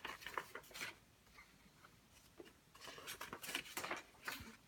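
Faint scattered clicks and light rustling, in two short clusters: one in the first second and another from about three seconds in.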